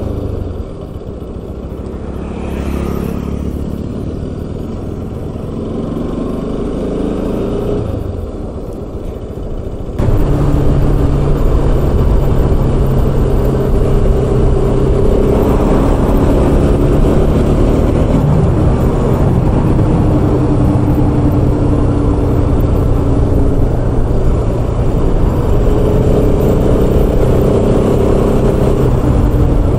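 Motorcycle engine running while riding, its note rising and falling with the throttle. About ten seconds in, the sound turns suddenly louder and fuller.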